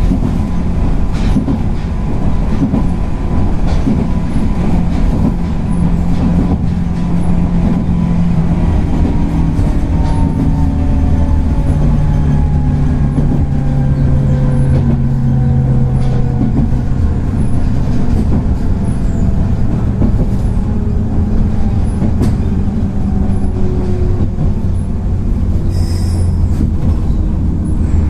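JR West 103 series 3550 subseries electric train running on rails. Its motor and gear whine falls steadily in pitch as it slows, over a low rumble with regular rail-joint clicks.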